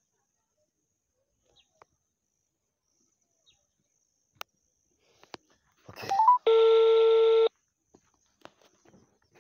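Mobile phone placing an outgoing call through its speaker: a few faint clicks, then about six seconds in a short rising run of three notes and a loud steady tone about a second long, the network's call-progress tone.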